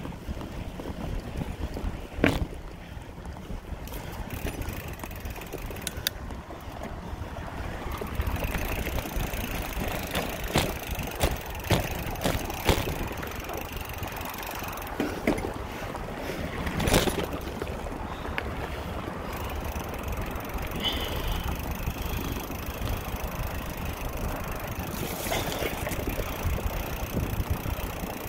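Wind buffeting the microphone as a steady low rumble, with a few sharp knocks scattered through it.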